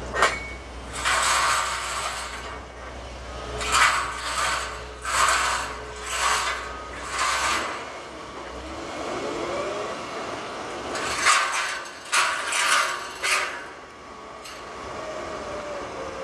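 Repeated harsh scraping and rattling of metal, in bursts about a second apart, with a sharp click at the start. A diesel wheeled excavator's engine rumbles low underneath and drops away about eight seconds in.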